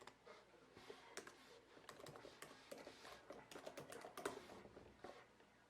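Faint typing on a computer keyboard: quick, irregular runs of key clicks with short pauses between them.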